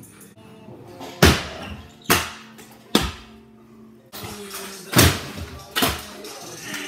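Sharp clacks of skateboard and kick-scooter decks and wheels hitting a concrete floor, five loud knocks ringing in the room, over music playing in the background.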